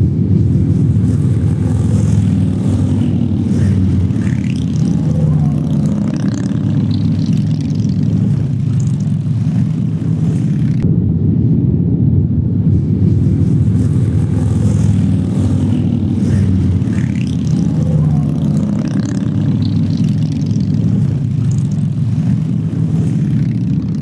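Steady, deep rumble of a long column of large touring motorcycles riding in procession, with no single bike standing out.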